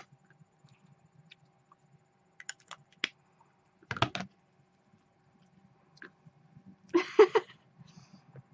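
Small clicks and taps of a metal lipstick tube and its cap being handled and capped, with a short clatter about four seconds in and a louder cluster of knocks about seven seconds in.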